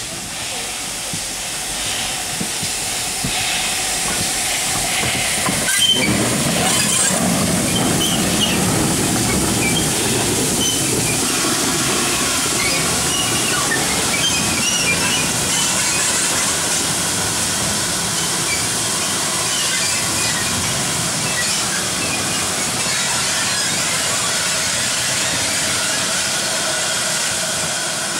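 GWR 4200 class 2-8-0T steam tank locomotive moving slowly with a steady hiss of steam, and one sharp knock about six seconds in.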